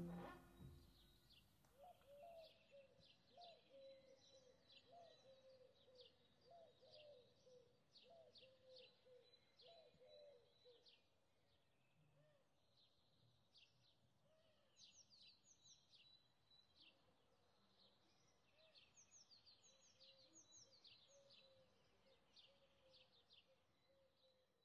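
Faint outdoor birdsong: many short, high chirps from small birds throughout, with a lower call repeating over and over in the first half.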